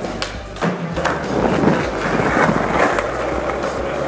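Skateboard wheels rolling on concrete, with a couple of sharp board clacks in the first second.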